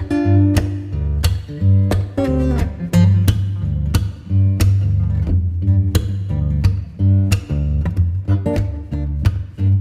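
Background music: acoustic guitar strummed and plucked over a heavy bass line with a steady beat.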